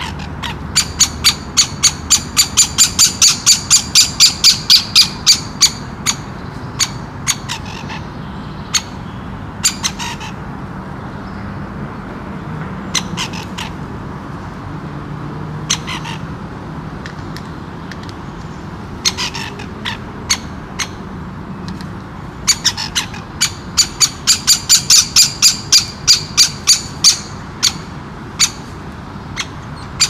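Great spotted woodpeckers calling: sharp, high, squawk-like calls in fast runs of about four a second, one run near the start and another about three-quarters through, with scattered single calls in between.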